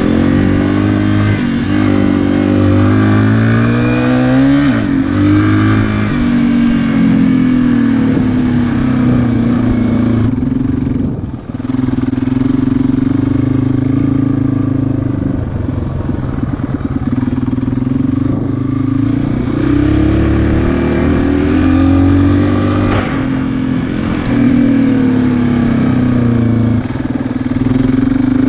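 Dirt bike engine running hard as it is ridden, its pitch climbing and dropping again and again with throttle and gear changes, with a brief dip in the sound about eleven seconds in.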